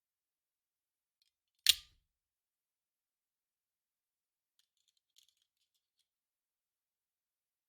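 A single short, sharp snap from a gun sound effect about two seconds in, then a few faint clicks around five seconds in.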